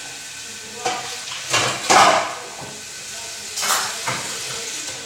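Home-built Lego ceiling fan running at a high speed setting: a steady hiss with a few sharp plastic clatters as the wobbling fan body shakes.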